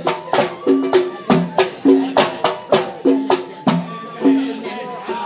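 Traditional Arabic band music: hand drums beat a quick, even rhythm of about three strokes a second, each stroke ringing with a short pitched tone, over a melodic line that comes through more clearly near the end.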